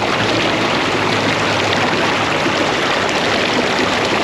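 Loud, even rush and splash of water as a ute ploughs through deep swamp floodwater, starting and stopping abruptly.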